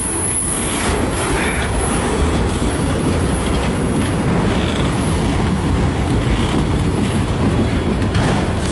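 Long freight train rolling past close by: a steady rumble of the cars' wheels with the clatter of wheels over rail joints.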